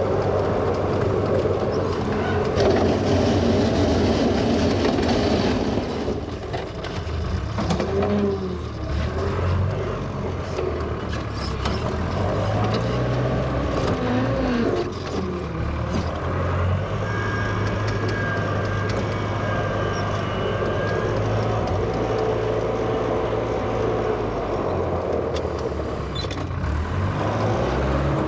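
A 1963 Volvo LM225 wheel loader's engine running steadily as it works, its pitch shifting now and then, with short rising-and-falling whines about eight seconds in and again around fourteen seconds in.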